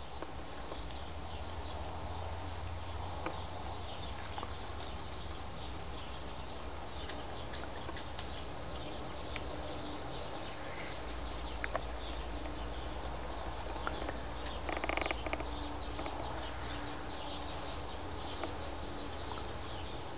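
Outdoor ambience: steady background hiss and low rumble with scattered faint bird chirps, and a brief louder noise about three quarters of the way through.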